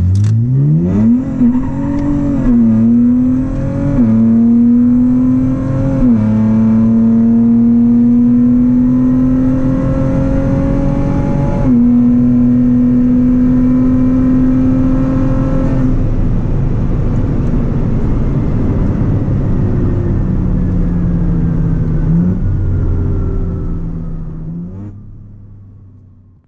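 Twin-turbo V6 of a tuned Nissan Z accelerating hard through the gears: the engine note climbs in each gear and drops sharply at four upshifts, each gear lasting longer than the one before. It then lifts off, the pitch sinking slowly as the car slows, and the sound fades out near the end.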